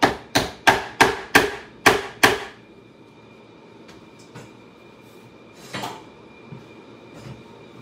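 Hammer driving nails through a sheet-metal seat strainer into a saddle tree: seven quick strikes, about three a second, then a single strike a few seconds later.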